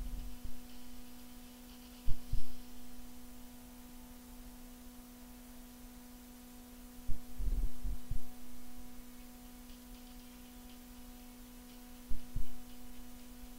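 A steady low hum, with small groups of dull low thumps every four to five seconds.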